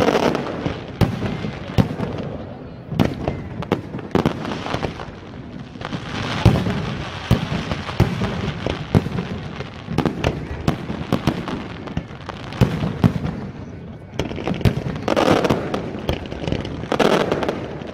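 Aerial firework shells bursting in quick, irregular succession, sharp bangs and pops overlapping one another, with a thicker run of bursts near the end.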